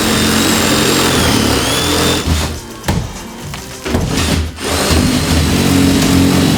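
A power tool running in two long stretches with a quieter gap in between, over background music.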